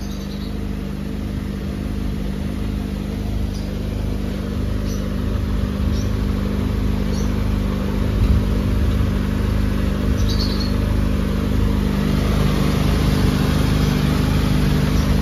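Nissan Sentra engine idling steadily with its electric cooling fan running, a continuous hum with a rushing noise that grows slowly louder.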